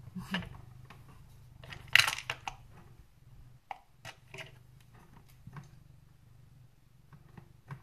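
A domestic cat purring steadily under handling noise as a cardboard box and fleece blanket are shifted into place. There is a loud crinkling crunch about two seconds in, then a few sharp clicks and knocks.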